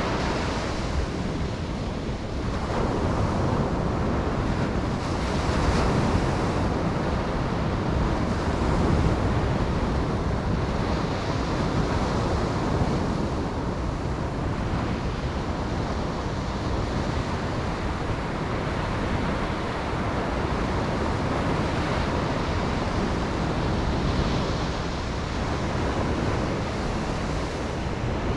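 Ocean waves breaking and washing onto a beach, with slow swells in loudness. Wind rumbles on the microphone underneath.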